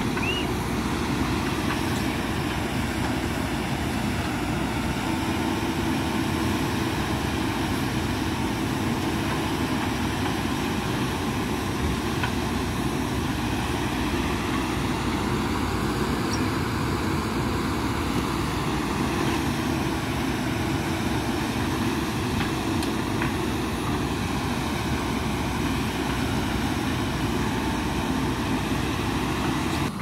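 Diesel engines of JCB 3DX backhoe loaders running steadily under load while the machines dig with their backhoe arms.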